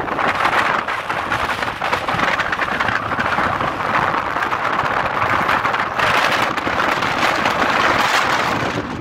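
Strong wind blowing across open floodwater and into the microphone, a steady loud rushing noise that swells slightly now and then, over the choppy water.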